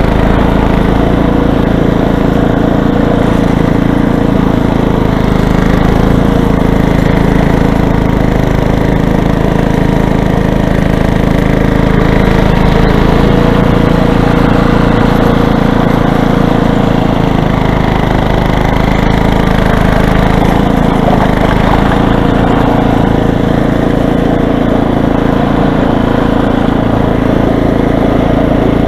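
Corded electric Toro snowblower running steadily and loudly while clearing snow.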